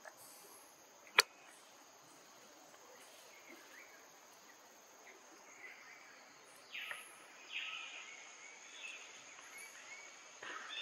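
Forest ambience: a steady high insect drone, with a few short chirps and squeaks in the second half. One sharp click about a second in.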